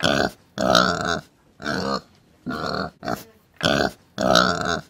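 Domestic pig grunting, about seven short grunts in a row.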